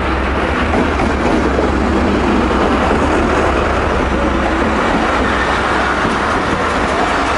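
A Pakistan Railways diesel locomotive passes close by, its engine running with a steady low hum. A line of passenger coaches follows, rolling past on the rails with a loud continuous rumble and clatter of wheels on track.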